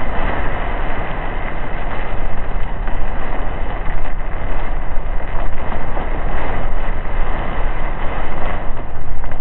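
Steady, loud rushing noise of a car driving through a storm: tyre, road and rain noise.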